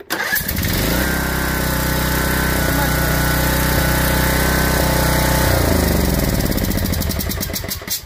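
Briggs & Stratton riding-mower engine started on the key, catching almost at once and running steadily for about five seconds, then switched off and winding down to a stop near the end. It starts easily now that its loose exhaust valve has been adjusted, the cause of its earlier hard starting.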